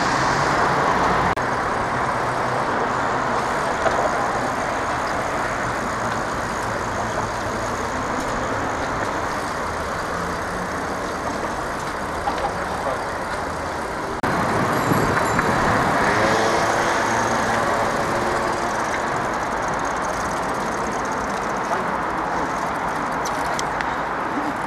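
Steady city road and traffic noise heard from a bicycle riding in a group of cyclists. It jumps louder suddenly a little past halfway.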